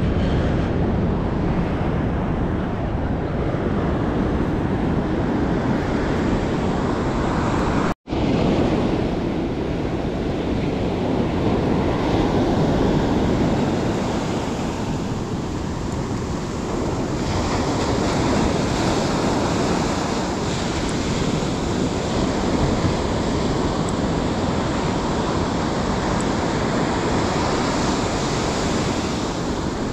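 Ocean surf washing onto a beach, a steady rush of breaking waves with wind buffeting the microphone; the sound drops out for an instant about eight seconds in.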